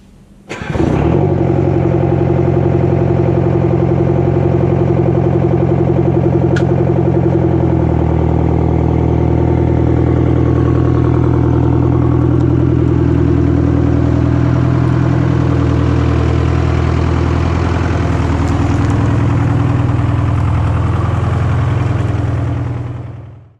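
An engine running steadily and loud at a constant speed, its tone shifting slightly about 7 seconds in and fading out near the end.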